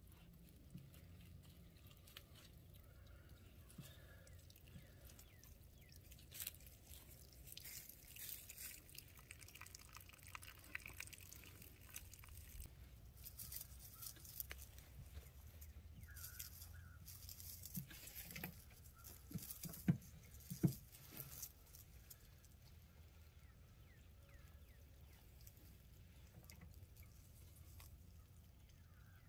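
Faint scattered rustling and crackling of dry leaves as a dog steps and noses about on the ground, with two sharper knocks about two-thirds of the way through.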